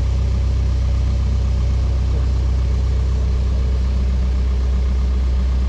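Case backhoe's diesel engine running steadily at a constant low drone.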